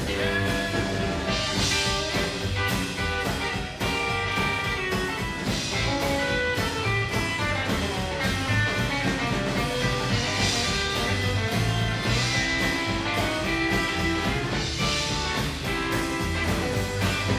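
Rockabilly band playing an instrumental break with no vocals: strummed acoustic guitar, electric guitar and drums.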